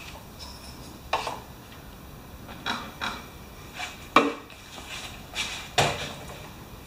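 A series of sharp metal clinks and knocks, about seven in all, the loudest about four seconds in, as metal tools and engine parts are handled.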